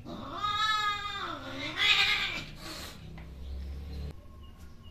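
Cat's mating cry: a long wavering yowl, then a louder harsh, hissing cry about two seconds in, the usual sound of a queen at the end of mating.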